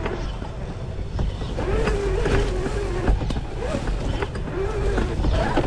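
Electric motor and geared drivetrain of an RC rock crawler whining, the pitch wavering up and down with the throttle. Short knocks and scrapes come in several times as it crawls over the dirt trail.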